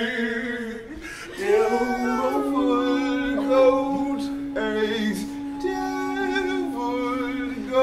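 Several voices singing a cappella in a chant-like way. From about two seconds in, one low note is held steady beneath the other voices.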